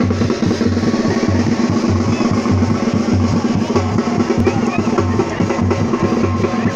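Music with a steady, driving drum beat.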